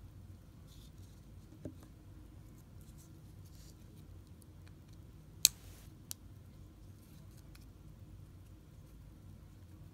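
Faint rustling of paracord being handled and flexed. About halfway through comes a sharp click, with a smaller click just after: the bracelet's buckle snapping shut.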